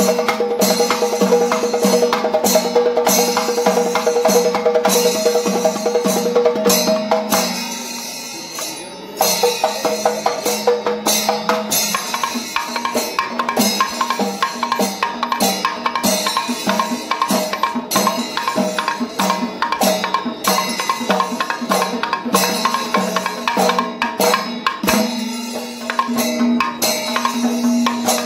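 Panchavadyam, the Kerala temple ensemble of timila and maddalam drums, ilathalam cymbals and kombu horns, playing a fast, dense rhythm of strokes over steady held tones. It thins out briefly about eight seconds in, then picks up again.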